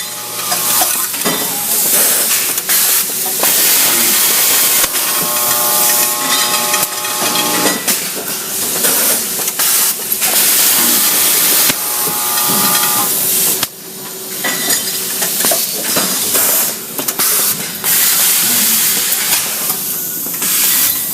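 Factory production machinery running, with loud hissing that swells and drops in repeated bursts. A pitched machine whine comes in twice over it.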